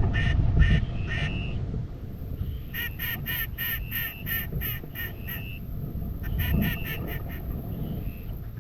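Duck quacks in quick runs of short, evenly spaced calls, a long run near the middle and a shorter one later, over a steady low wind rumble on the microphone.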